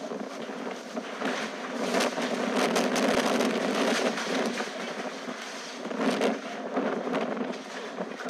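Strong wind gusting hard, swelling from about a second in and surging again around six seconds, with scattered short clattering knocks through the rush.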